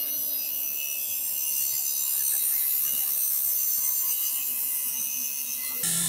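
Abrasive cut-off wheel grinding through a wire-reinforced rubber hydraulic hose, throwing sparks as it cuts the steel braid. The sound is a steady, high-pitched grinding hiss.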